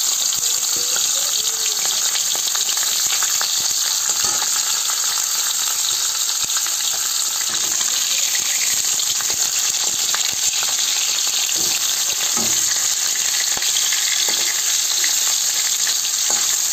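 Hilsa fish heads frying in hot oil in a metal kadai, a steady loud sizzle, with now and then the scrape and tap of a metal spatula against the pan as the pieces are turned.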